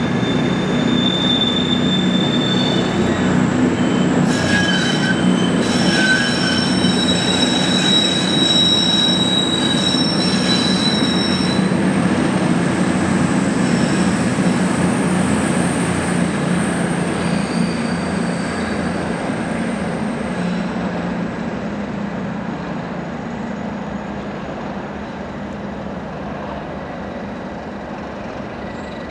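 Class 37 diesel locomotives, their English Electric V12 engines running with a steady low drone, as the train moves slowly past. High squeals come on and off from the wheels over the first dozen seconds, and the engine sound fades over the last third as the train draws away.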